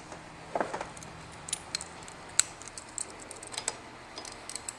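Socket ratchet being worked on a motorcycle's handlebar clamp bolts: scattered sharp metal clicks and clinks, with a louder knock about half a second in and a quick run of small clicks near the end.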